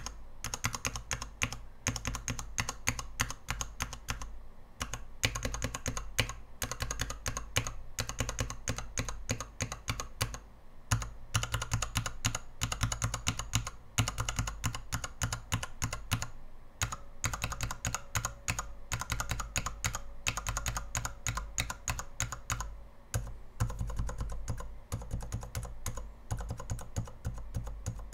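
Mechanical keyboard switches on a 72-switch tester with an acrylic base and XDA-profile dye-sub keycaps, pressed in quick runs of clacking keystrokes, several per second. Brief pauses come every few seconds between runs.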